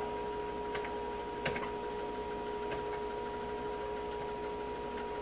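Steady electrical hum from a hot electric kiln, with a faint click about a second and a half in and a few light ticks as its lid is lowered.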